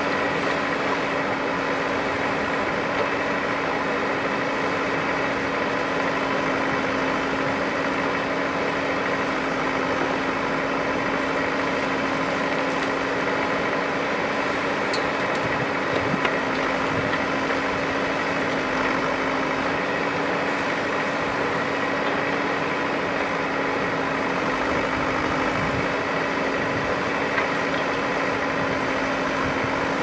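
JCB 3DX backhoe loader's diesel engine running steadily with a constant hum while the hydraulic backhoe arm digs and loads soil. About halfway through there is a short rise as a bucket of soil is dumped into the trailer.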